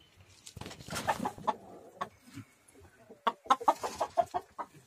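Chickens clucking: a run of short clucks starting about half a second in, coming quicker and louder in the second half.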